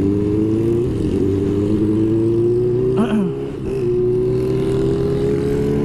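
Benelli TNT600's inline-four engine under way, its pitch climbing steadily as the bike accelerates. There is a brief dip in level and pitch for a gear change about three and a half seconds in, then it climbs again.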